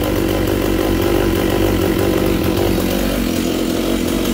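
Freshly rebuilt Stihl 064 chainsaw's two-stroke engine running steadily.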